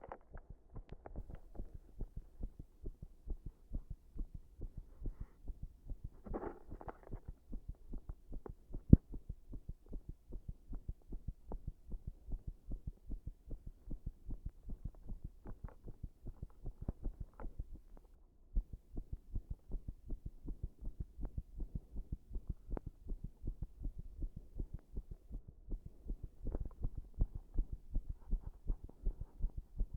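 Human heart sounds: a continuous run of low lub-dub beats, made irregular by pressure on the body, which brings on arrhythmia, with a short gap in the beats about eighteen seconds in. A sharp knock about nine seconds in and a brief rustle around six seconds in.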